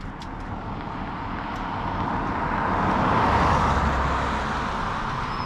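A vehicle passing on a paved highway: tyre and engine noise swelling to its loudest about three and a half seconds in, then fading.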